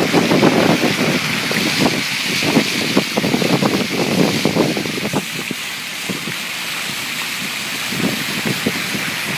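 Car driving through floodwater: water splashing and sloshing against the body and wheel arches over a steady hiss. The splashing eases for a couple of seconds past the middle, then picks up again.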